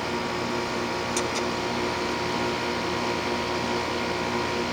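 2001 Trane XE1000 5-ton heat pump outdoor unit running steadily in heating mode: scroll compressor hum with the outdoor fan's whoosh, its coil frosting up. A faint brief high tick about a second in.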